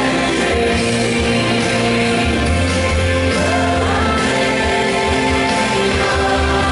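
A song with a singing voice over instrumental accompaniment of held chords and a bass line, played for a dance.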